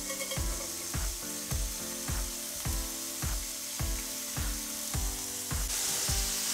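Julienned carrots sizzling steadily in sesame oil on a stainless teppanyaki grill plate as they are caramelised; the sizzle grows louder near the end. Background music with a steady beat runs underneath.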